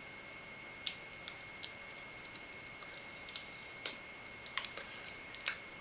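Light, irregular clicks and ticks of a be quiet! Shadow Rock Topflow SR1 CPU cooler being handled and turned over in the hands, fingers knocking against its aluminum fins and heatpipes.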